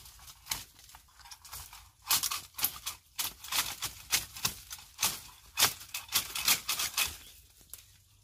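Dry bamboo stems and twigs crackling and snapping as hands push into a thicket of wild bamboo. It is a rapid, irregular run of sharp clicks, busiest from about two seconds in to about seven seconds.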